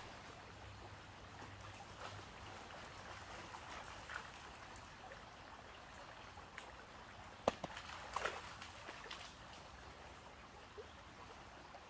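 Shallow stream trickling steadily over stones, with a short cluster of sharp sounds about seven and a half seconds in, the loudest moment.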